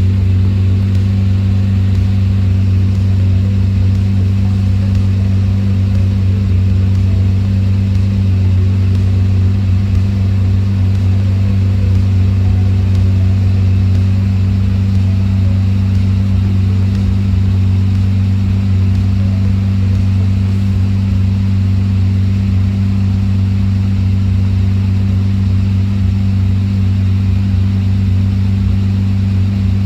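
Lamborghini Murcielago V12 engine idling steadily, with a deep even hum and no revs.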